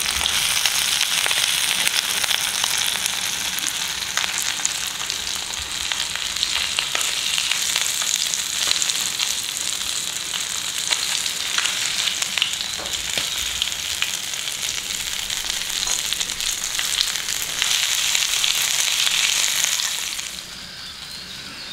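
Rava- and rice-flour-coated fish shallow-frying in oil in a pan, with a steady crackling sizzle and now and then the scrape of a spatula. The sizzle falls away about twenty seconds in.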